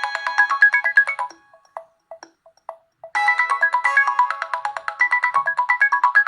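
Nokia G20 phone ringtone playing: a quick run of melodic notes that thins to a few scattered notes after about a second, then a busy run of quick notes starts again about three seconds in.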